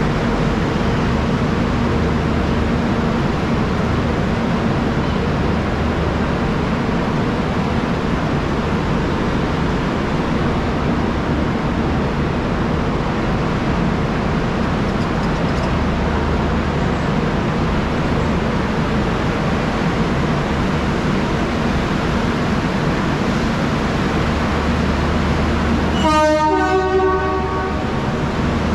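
Steady mechanical hum of a railway station platform with a train standing at it. Near the end comes a horn lasting about two seconds.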